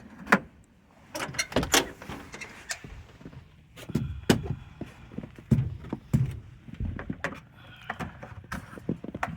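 A house door being handled and footsteps: irregular clicks, knocks and low thuds, the heaviest a few in the middle.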